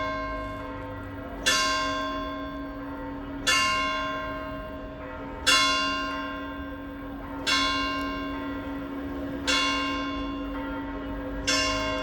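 A single church bell tolling slowly, one stroke about every two seconds, six strokes in all, each ringing on and dying away before the next, with its low hum note sounding steadily underneath. It is the noon bell.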